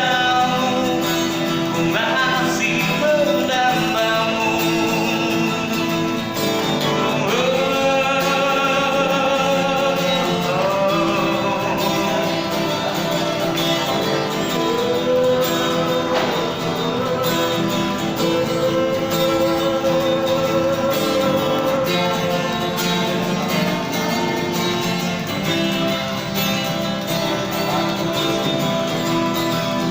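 Acoustic guitar strummed as accompaniment to a singer's pop-ballad vocal, which enters after a few seconds with long held notes.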